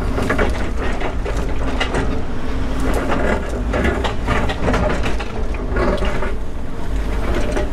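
Volvo 140 excavator's diesel engine running under load, with irregular scraping, cracking and knocks from the bucket digging and prying at rock and ground.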